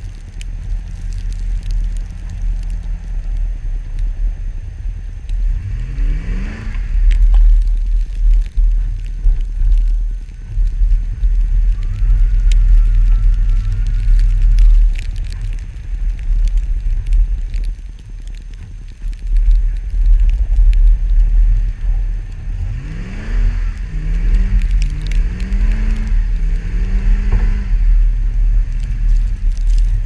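Lifted Chevrolet Avalanche's V8 running through an aftermarket Dynomax Bullet exhaust while it ploughs through deep snow, with a heavy wind rumble on the outside-mounted camera and snow crunching under the tyres. The revs climb sharply about six seconds in, then near the end rise and fall several times in quick succession.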